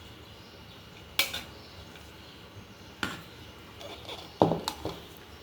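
Cutlery and dishes clinking: a few separate sharp clinks, the loudest about four seconds in.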